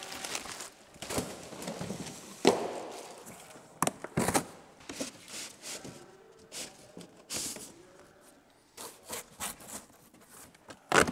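Scraping and rubbing as the shipping packaging of a new aircraft propeller is opened, with scattered knocks and bumps; a sharp knock comes near the end.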